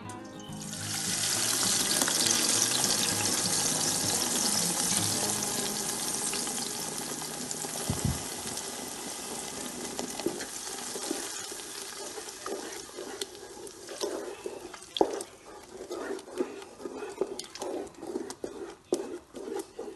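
Blended tomato, pepper and garlic purée poured into hot oil in a pot, setting off a loud sizzle that slowly dies down over several seconds. Later, a wooden spoon stirs the sauce, with scrapes and knocks against the pot.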